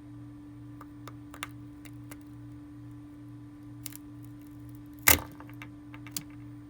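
Razor blade cutting into a cheddar cheese Combos baked pretzel snack: scattered light clicks and taps, then one sharp crack about five seconds in as the shell gives way. A steady low hum runs underneath.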